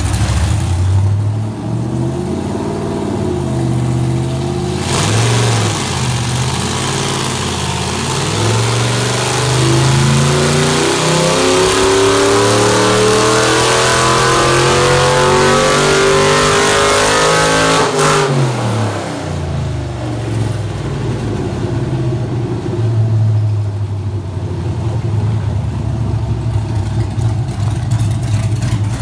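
Chevrolet 5.3 LS V8 with a stage 1 cam on an engine dyno cart, running loud: it idles with a few blips, then about five seconds in goes into a full-throttle pull with the revs climbing steadily for over ten seconds. The throttle is then shut off sharply and the engine falls back to idle, with a few light blips near the end.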